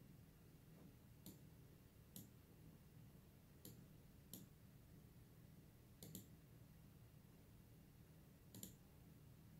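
Faint computer mouse clicks, about seven in all at irregular intervals of a second or two, one of them a quick double-click, over a low steady hum.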